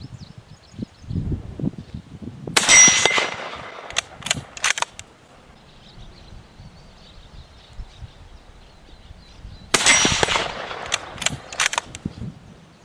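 Two rifle shots from a GA Precision Non-Typical bolt-action hunting rifle, about seven seconds apart, each with a brief ringing tone just after. A few sharp clicks follow each shot about a second later as the bolt is cycled. Wind buffets the microphone as a low rumble throughout.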